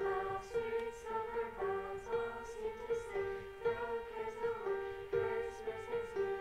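Instrumental music: a steady, repeating pattern of notes with a pulse about twice a second, played as the lead-in to a choir song.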